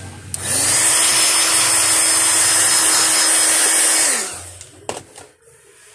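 Heat gun switched on and blowing air for about four seconds. Its motor whine rises as it spins up and falls away as it is switched off. A sharp click follows near the end.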